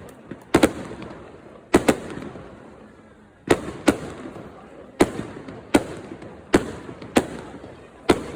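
Fireworks display: aerial shells bursting in sharp bangs, about nine of them at irregular intervals, each followed by a fading echo, with a short lull about two seconds in.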